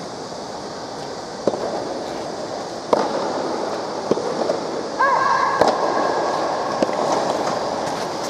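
Five scattered, sharp, echoing pops of soft tennis balls under the court's roof, over a steady background murmur; from about five seconds in, a long drawn-out shouted call.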